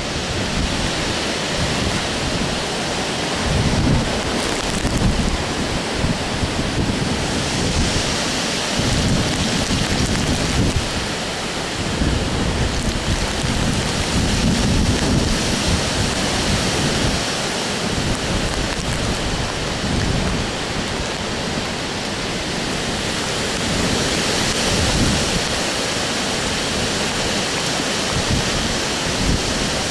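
Hurricane Sandy's wind blowing hard through trees, with rain, steady rushing noise. Gusts buffet the microphone in uneven low rumbles that rise and fall.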